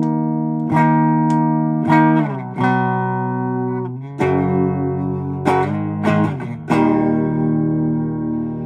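Esquire-style electric guitar played through an amplifier with a little reverb: about eight strummed chords, each left to ring out and fade before the next.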